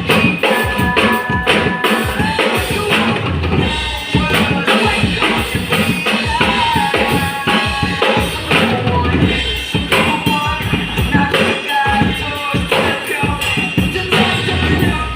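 Drum kit played live at a dense, steady groove over a recorded backing track that carries a pitched melody.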